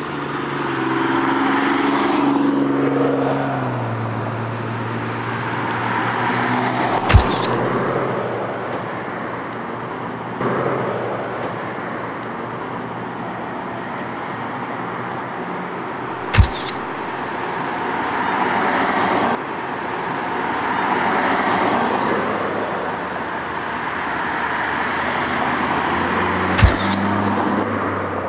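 Road traffic on a busy street, cars passing one after another, with one engine's note dropping over the first few seconds. Three sharp knocks stand out, about nine seconds apart.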